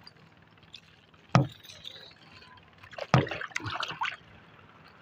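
Water splashing, with a single sharp knock about a second and a half in and a cluster of splashes and knocks around three seconds in.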